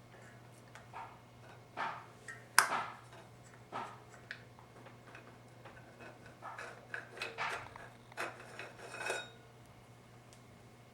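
Metal transmission parts from a 4L60E input drum being handled and set down, giving irregular clinks and clatters, the loudest about two and a half seconds in.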